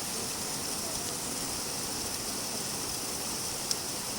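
Steady rain falling, an even hiss, with one sharp tick near the end.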